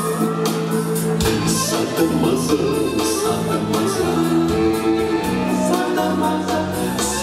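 Music playing: a rising tone that ends about a second in, after which a beat comes in under held notes.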